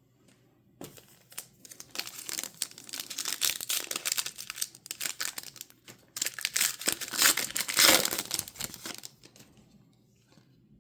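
Foil wrapper of a trading card pack crinkling and tearing, in two long stretches of rustling that die away about a second before the end.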